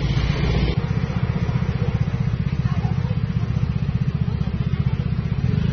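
Small motor scooter engine running steadily, its low exhaust note pulsing fast and even.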